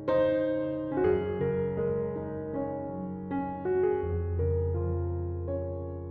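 Background piano music: soft, slow piano chords with a sustained low bass note.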